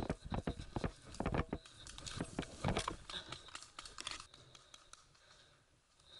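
Footsteps through tall grass and brush, with rustling and crackling of stems and twigs; the irregular clicks come thick at first and thin out and fade over the last couple of seconds.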